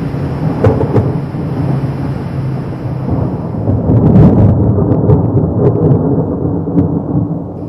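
Thunder rumbling, swelling to its loudest about four seconds in and easing off toward the end, with a few faint crackles above the rumble.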